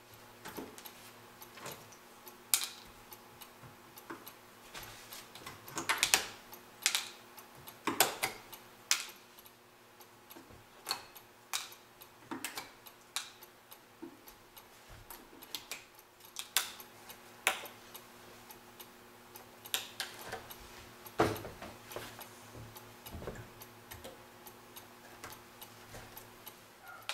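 Staples being pried and pulled out of a wooden pool table rail with a screwdriver and pliers: irregular sharp metallic clicks and snaps, a few of them much louder.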